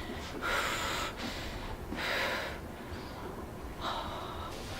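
A person breathing deeply and audibly through the nose and mouth, three breaths about a second and a half apart.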